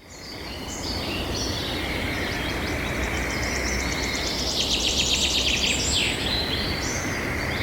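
Several birds chirping and calling over steady outdoor background noise, fading in at the start. About halfway through comes a fast rattling trill lasting a second or so.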